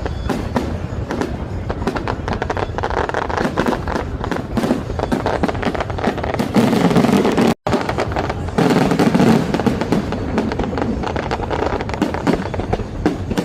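Fireworks going off in dense, rapid volleys of bangs and crackles, with music playing along with them. The sound drops out for an instant about seven and a half seconds in.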